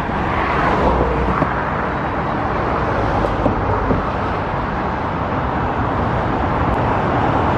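Steady road traffic noise from passing cars, a continuous rumble and tyre hiss with no single vehicle standing out.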